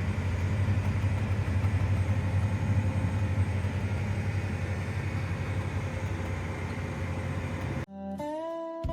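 Engine running steadily with a low drone. About eight seconds in it cuts off abruptly and background music with slide guitar begins.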